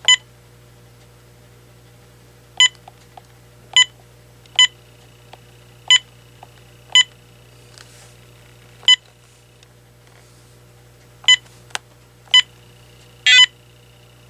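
AT&T 7720 cordless phone's keys being pressed one at a time, each press answered by a short single-pitched confirmation beep, about nine in all at irregular intervals. Near the end comes a longer warbling beep, and a little before it a sharp click.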